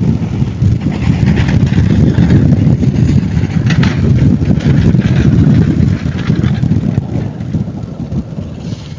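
Strong wind buffeting the microphone: a loud, gusty low rumble that eases off over the last few seconds.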